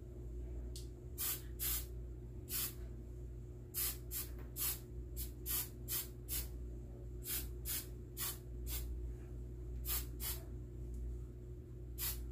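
Aerosol hairspray can sprayed in many short hissing bursts, about two a second and somewhat irregular.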